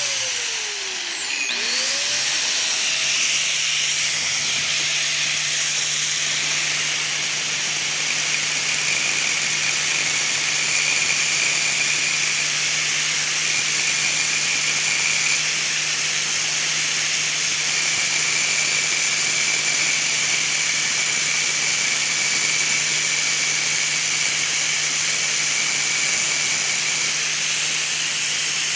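Electric grinder grinding the galled first threads off a steel bolt to put a taper on it: a steady grinding hiss over the motor's hum.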